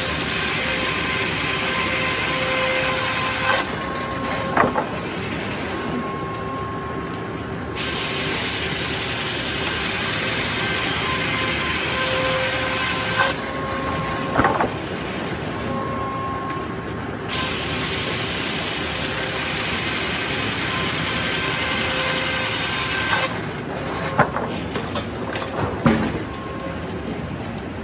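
Sawmill circular head saw ripping a poplar log, a steady whine from the spinning blade under the rush of the cut. The cutting rush comes and goes in three long passes, with sharp knocks from the carriage in between, about four seconds in, about fourteen seconds in, and several near the end.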